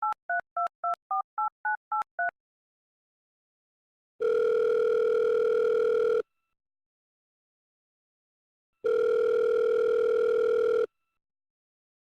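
A phone number keyed in on a touch-tone keypad: a quick run of about nine short beeps. The line then rings at the other end: two long ringback tones, each about two seconds, with a gap of silence between.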